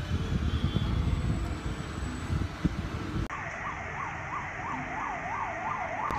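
A low rumbling noise for about three seconds, then, after an abrupt change, an emergency-vehicle siren in yelp mode, its pitch sweeping up and down about three times a second.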